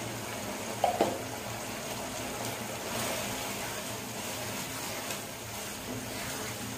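Minced beef in a wet spice masala simmering in a nonstick pan while a wooden spatula stirs and scrapes through it, with a short knock of the spatula about a second in.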